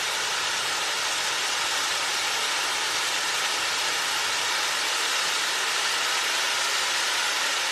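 Kimbolton Fireworks Colour Spinner Catherine wheel spinning and burning: the steady hiss of its fountain charges driving the wheel and spraying brocade sparks, even throughout with no crackles or bangs.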